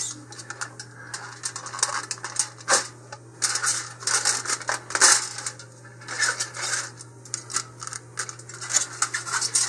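Aluminium foil crinkling and crackling in quick irregular bursts as it is peeled off a nose cone and crumpled up in the hand, over a steady low hum.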